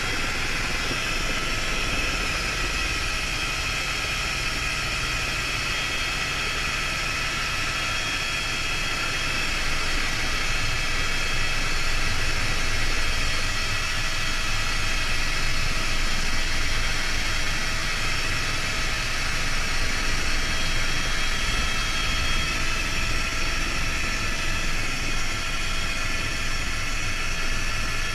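Helicopter in flight heard from inside the cockpit: steady rotor noise with a constant high turbine whine.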